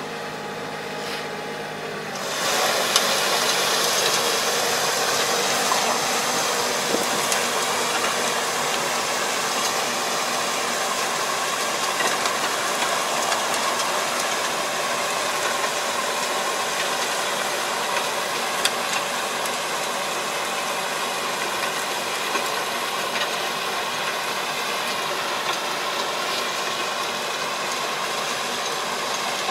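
Tractor engine running under load as it pulls a rotary harrow through a flooded rice paddy, puddling the field. About two seconds in, the sound jumps up to a steady, hissy drone.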